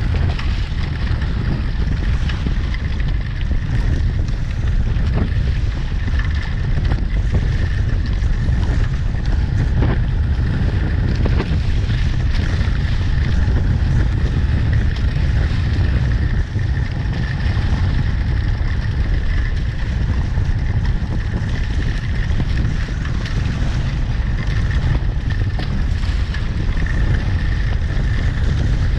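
Wind buffeting the microphone and water rushing past the hulls of a small catamaran under sail at speed, a steady loud low rumble with a faint high whistle running through it.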